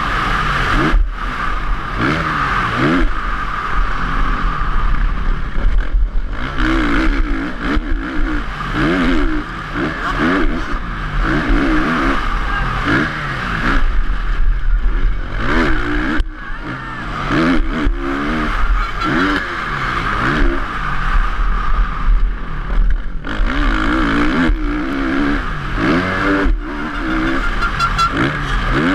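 Motocross bike engine revving hard under racing load, heard from onboard. Its pitch climbs and drops again and again as the rider opens and shuts the throttle and shifts through the gears.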